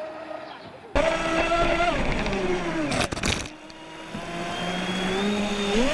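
Brushless electric motor of a Pro Boat Miss Geico 29 RC catamaran whining, faint and distant at first, then loud and close with rushing water from about a second in. The pitch falls as the throttle eases, a brief burst of rough noise cuts in near the middle, then the whine climbs again as the boat speeds up.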